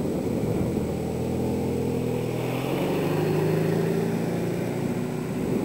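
Off-road vehicle engine running, its pitch rising a little about halfway through and then easing off.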